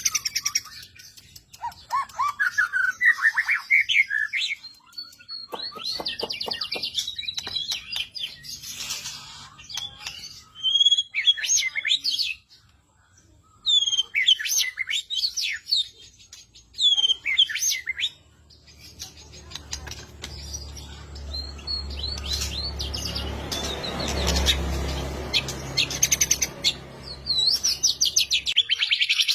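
Songbird song used as a masteran (tutor recording for training caged birds): varied chirps, quick whistled phrases and fast trills, broken by short pauses. About two-thirds of the way through, a low rumble runs under the song for several seconds.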